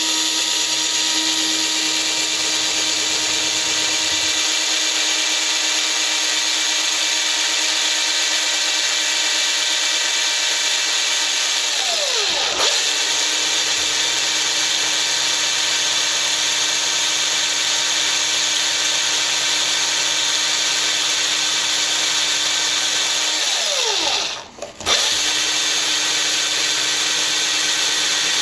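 Cordless drill running steadily as its bit cuts a hole through steel tubing. The motor slows and picks up again about halfway through, then cuts out briefly near the end before starting again.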